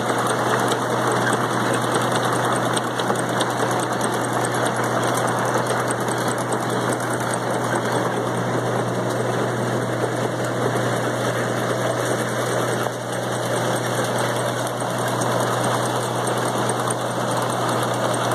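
Tomato harvester running: its engine and harvesting machinery make a steady mechanical din over a constant low hum.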